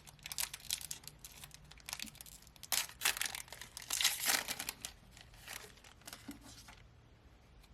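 A trading card pack's wrapper being torn open and crinkled by hand, in a run of crackling tears and rustles that are loudest in the middle and fade out near the end.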